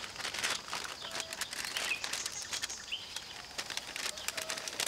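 Birds chirping in short, scattered calls over a light crackling rustle. A paper bag is handled near the end.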